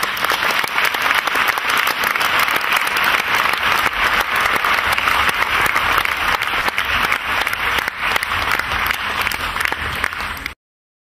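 Audience applauding: a dense, steady mass of clapping that cuts off suddenly near the end.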